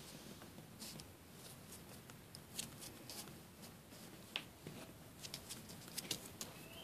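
Faint paper rustling and light clicks from a puppy's paws shifting on a glossy magazine, with the ticks coming more often in the second half.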